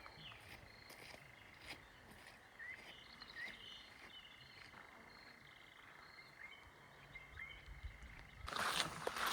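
Faint outdoor ambience with scattered short, high, upward chirps from small animals over a low hiss. A louder rustling noise starts near the end.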